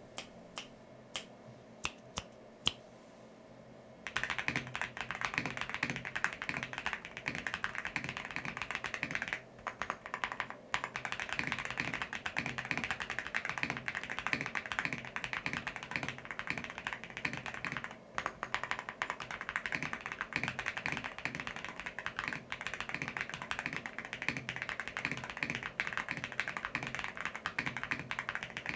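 Mechanical keyboard typing sound test: factory-lubed Akko Cream Black Pro V3 linear switches in a Tiger 80 Lite board with Kat keycaps. A few single keystrokes at first, then steady fast typing from about four seconds in, with brief pauses around ten and eighteen seconds in.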